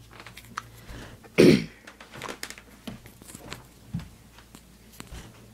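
A single short cough from the person filming, about a second and a half in, among faint clicks and rubbing from the handheld phone being moved around.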